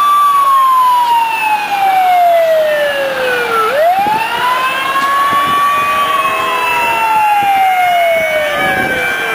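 Fire engine siren wailing. The pitch falls slowly, climbs quickly again about four seconds in, holds, then falls slowly once more near the end.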